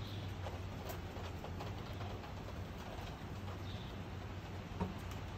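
Steady outdoor ambience during a thunderstorm: a low rumble and hiss with scattered faint ticks of dripping water and a small click about five seconds in.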